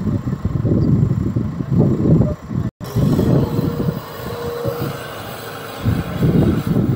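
Diesel engine of a Tata Hitachi TL340 wheel loader running under load as it manoeuvres with its bucket raised, a heavy uneven low rumble buffeted by wind on the microphone. The sound cuts out for an instant about three seconds in, after which a steady thin whine runs for a couple of seconds.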